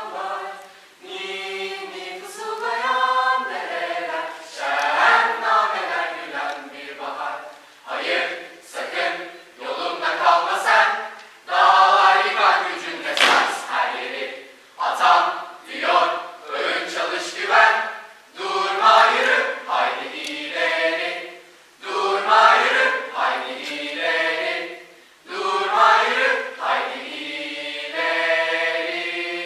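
Mixed choir of teenage boys and girls singing a cappella in phrases with short breaths between them, ending on a long held chord.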